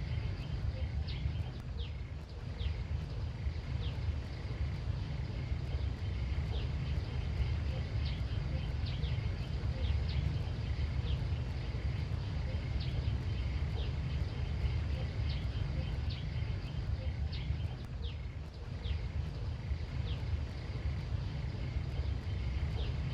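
Rural outdoor ambience: a steady low rumble under short, high chirps scattered throughout, with a faint steady high hum.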